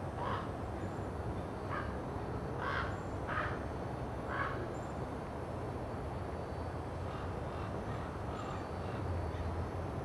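A crow cawing: about five short, separate caws in the first four and a half seconds, then fainter calls, over a steady low rumble.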